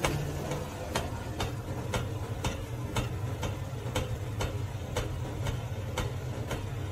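Regular ticking, about two ticks a second, like a clock, over a steady low hum.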